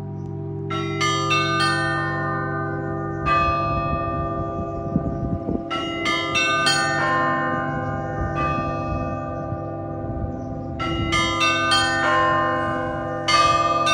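Russian Orthodox trezvon on a set of church bells: the small ringing bells are struck in quick clusters every few seconds over the long, sustained hum of the larger bells.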